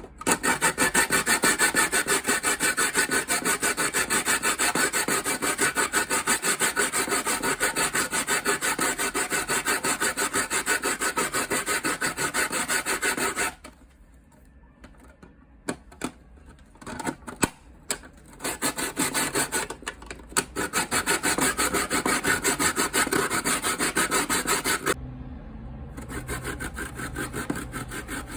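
Frozen cucumber being grated on a grater with quick, rhythmic rasping strokes, the step that makes the green vinegar dressing. The strokes pause for a few seconds about halfway through, then resume and grow quieter near the end.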